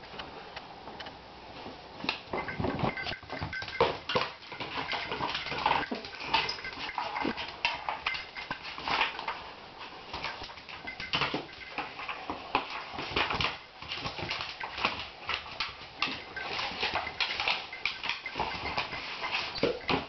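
Miniature dachshund handling a cardboard tube on a vinyl tile floor: a continual run of irregular clicks, knocks and scuffs as the tube bumps and scrapes along the floor and the dog's claws tap on the tiles.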